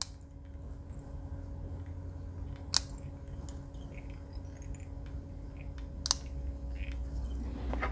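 Small scissors snipping bucktail hair on a jig: two sharp snips, about three seconds apart, with a few fainter ticks. A low steady hum runs beneath.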